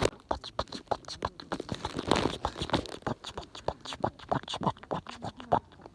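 Bonfire crackling: a quick, irregular run of small pops and snaps from burning wood.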